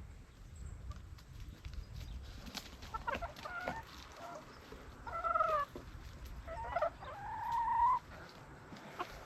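Backyard hens clucking and calling while being fed kitchen scraps: a few short calls, then louder, longer drawn-out calls over the second half.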